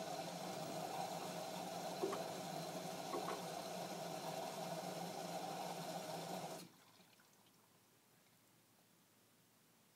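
Washing machine running with water in the drum, a steady sound that cuts off suddenly about two-thirds of the way in, leaving near silence.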